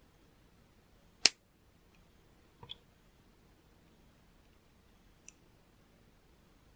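Plastic LEGO pieces clicking together as they are pressed into place: one sharp snap about a second in, a quick double click a little later, and a light click near the end.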